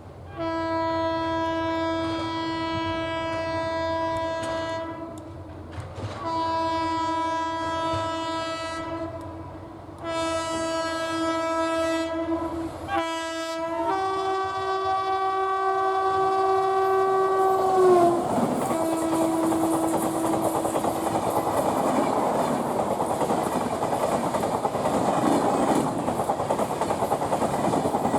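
WAP7 electric locomotive's twin-tone horn sounding: three long blasts and a short one, then a longer, higher blast whose pitch drops as the locomotive passes, about two-thirds of the way through. After that come the rush and rail clatter of the express's coaches speeding by.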